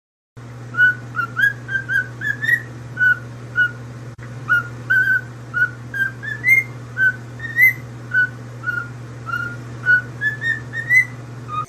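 Pet parrot whistling a long run of short notes, about two a second, mostly on one pitch with some rising, over a steady low hum.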